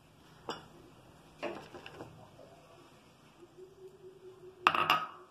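Kitchen bowls being handled on a counter: a few light knocks, then a louder clatter about four and a half seconds in as a bowl of gram flour is set down.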